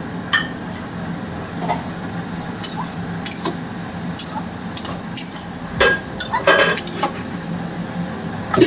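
Metal spatula scraping and clinking against a cooking pan as tomatoes are stirred into fried onions, in irregular knocks and scrapes that come thickest in the middle.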